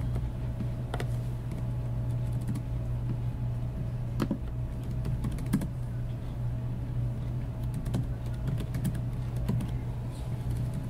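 Typing on a computer keyboard: irregular clusters of key clicks, over a steady low hum.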